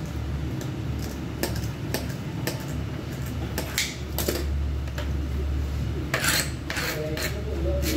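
Scissors snipping the fins off a whole fish, then, from about halfway in, a plastic fish scaler scraping over its scales in quick strokes: a run of sharp clicks and rasps. A low steady hum runs underneath.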